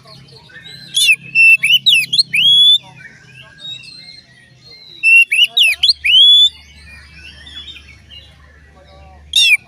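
Oriental magpie-robin (kacer) singing in two loud bursts of rapid, sweeping whistled phrases, about a second in and again about five seconds in, with quiet gaps between.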